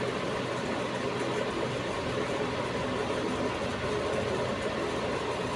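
Steady mechanical background drone with a faint steady tone, unchanging and with no sudden sounds.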